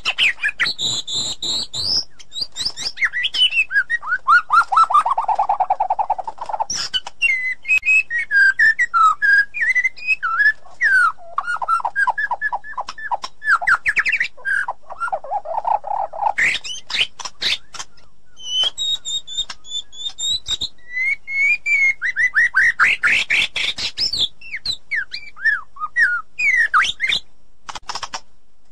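White-rumped shama singing a continuous, varied song of clear whistled notes, quick rattling trills and sharp clicking notes, the phrases changing every second or two.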